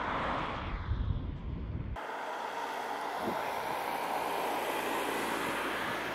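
A car passes close by at speed: a rushing swell that fades within about a second, with wind buffeting the microphone. About two seconds in it cuts to a steady, even rushing hiss.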